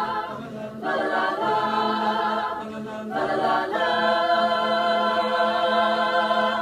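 A cappella mixed choir singing the closing chords of a wintertime carol, the chord changing a few times over a steady low note. It ends on a long held final chord that the whole choir cuts off together.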